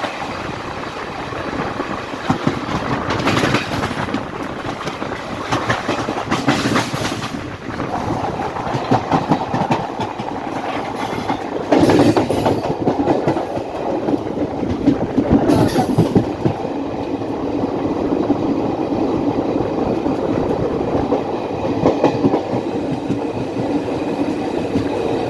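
Goods train wagons rolling past, their wheels clattering steadily over the rail joints, with a few short high-pitched bursts along the way.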